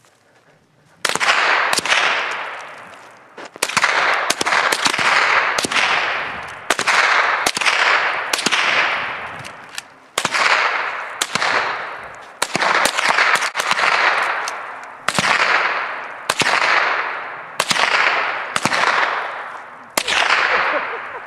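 .22 rimfire rifles fired by several shooters, sharp cracks in quick, uneven succession starting about a second in, each trailing off in a ringing echo that often overlaps the next shot.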